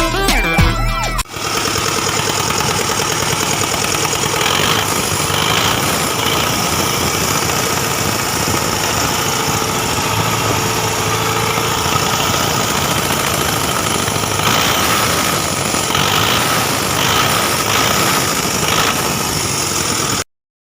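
Rebuilt Deutz diesel engine of a Bomag BW211D roller running steadily on its test run. A second of music comes before it, and the engine sound cuts off suddenly near the end.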